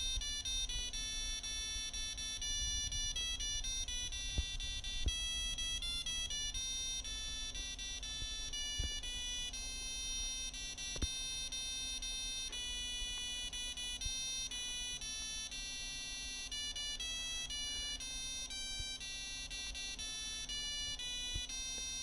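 Electronic Christmas-tree kit's music chip playing a tune as a string of plain beeping notes, changing several times a second, over a steady low hum.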